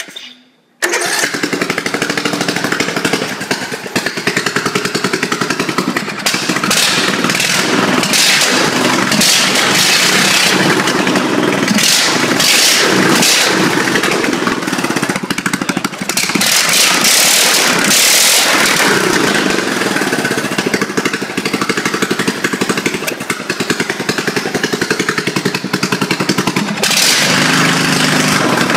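Craftsman small single-cylinder gas engine running loudly, with fast, even firing pulses, and getting louder and rougher in several stretches as it is revved.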